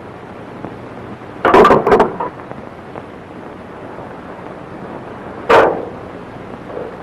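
Sudden loud bangs over steady old-film hiss: a quick cluster of three or four clattering strikes about one and a half seconds in, then a single bang with a short ringing tail about five and a half seconds in.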